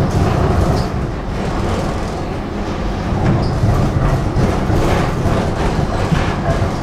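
Tram running on its rails, heard from inside the passenger car: a steady low rumble of wheels and running gear with some light clatter over the track.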